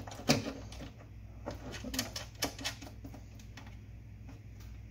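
Irregular metallic clicks and taps as a nut and bolt are started by hand on a mount inside a sheet-steel electrical enclosure, mostly in the first three seconds, over a low steady hum.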